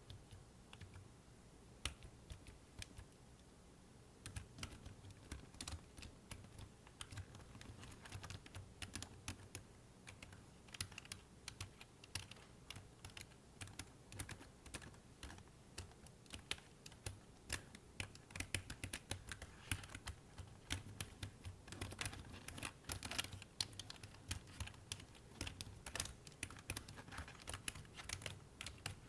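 Fingers typing on a computer keyboard, keys clicking. A few scattered keystrokes at first, then quick, continuous typing from a few seconds in, growing denser toward the end.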